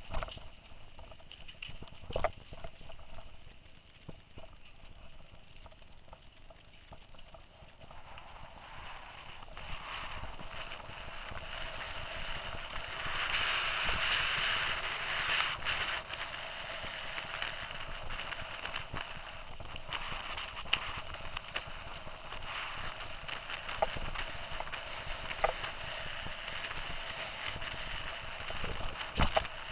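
Mountain bike ridden fast down a dirt forest trail: tyre rumble and the bike's rattle with wind rushing over the microphone, swelling loudest about halfway through, and scattered sharp knocks as the bike hits bumps.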